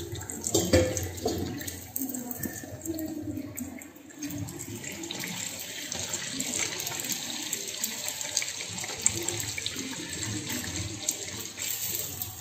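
Dough sticks (yu char kueh) deep-frying in hot oil in a steel wok: a steady sizzle. Metal tongs clink and knock against the wok now and then as the sticks are turned.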